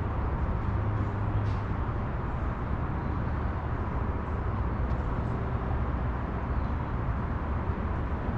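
FPV quadcopter in flight, heard through its own camera's microphone: a steady rushing noise with a heavy low rumble and a faint steady tone, plus a few brief high chirps.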